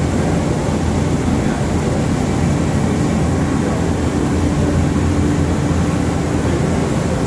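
Okuma LC40-2ST CNC lathe running, a steady low mechanical hum and drone, with a faint whine that comes in for a few seconds midway.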